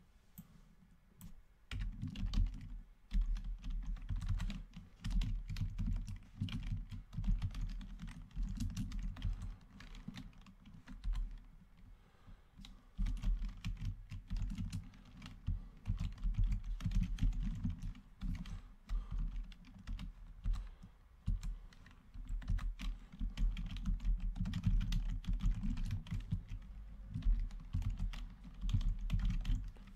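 Typing on a computer keyboard in quick runs of keystrokes, starting about two seconds in, with a couple of short pauses.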